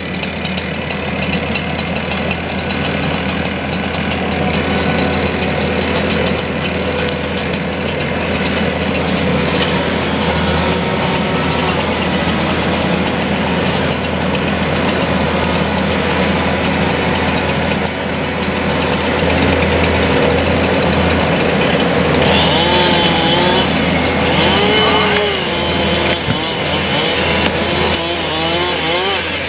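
Kubota compact track loader's engine running steadily, its pitch rising and falling in the last several seconds as it revs up and down.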